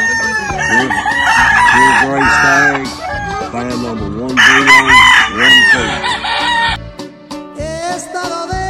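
Game roosters crowing twice, each crow lasting about two seconds, over corrido music; near the end the crowing stops and the music goes on alone.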